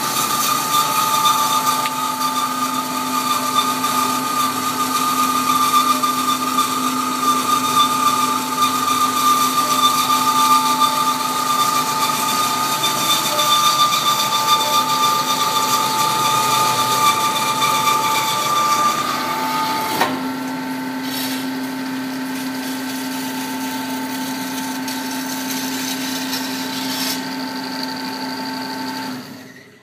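Bomar Individual 510/330 GA horizontal metal-cutting bandsaw running, its blade sawing through a clamped metal round bar with a steady whine over a hiss. About twenty seconds in the whine changes pitch and the sound gets a little quieter. It stops abruptly near the end.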